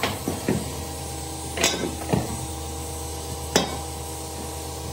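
Sharp metal clanks as a cast-iron electric motor housing and its end cover are handled and knocked together: a quick cluster of knocks at the start, then single clanks about a second and a half, two seconds and three and a half seconds in, the last the loudest. A steady hum runs underneath.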